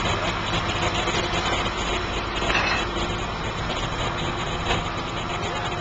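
Flatbed truck's engine idling steadily with a low hum, with two short knocks, one about halfway through and one near the end.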